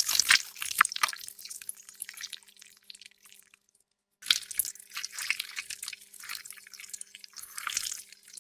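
Blood sound effects: wet liquid splattering and dripping in quick runs of small splats, each run tailing off. The first dies away about three and a half seconds in, and after a short silence a second starts around four seconds in.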